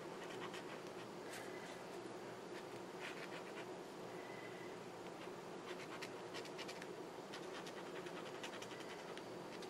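Faint scratching of a black brush-tip marker pen drawing short strokes on paper, over a steady low hum.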